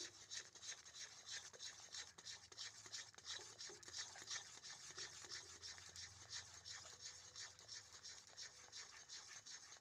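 Faint, rhythmic scraping of a metal spatula against a kadhai as thick mango jam is stirred, about two or three strokes a second. The jam is kept moving so it does not catch and burn on the bottom.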